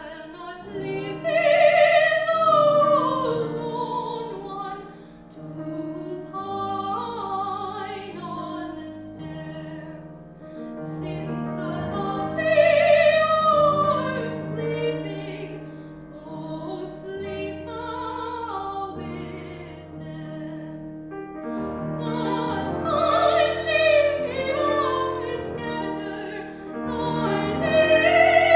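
Classical singing in operatic style with piano accompaniment: a solo voice sings long held notes with vibrato over piano chords, the phrases swelling and easing off.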